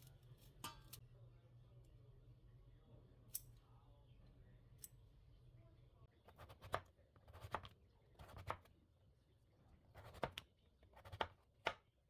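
Faint low hum, then from about six seconds in a run of soft knocks and clicks in small clusters, like small objects being handled.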